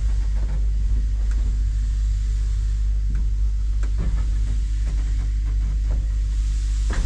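Steady low rumble of a heritage train in motion, with a few light clicks and knocks over it.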